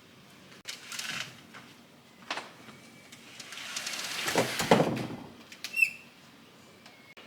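Kitchen handling sounds: a few knocks and clicks, a louder rushing swell about four seconds in, and a brief high squeak near the end.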